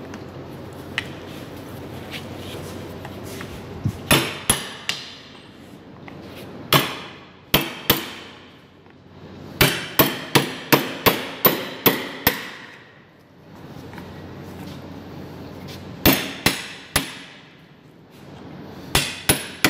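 Hammer striking a chisel to crack open the skull cap along the cut outline: sharp strikes in bursts of a few at a time, with a quick run of about nine near the middle.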